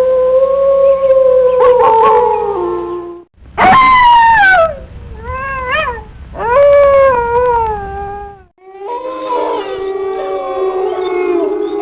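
Wolves howling. A long, steady howl drops in pitch near its end and is cut off; then come several shorter howls that start high and slide down, some wavering. From about nine seconds in, several wolves howl together in an overlapping chorus.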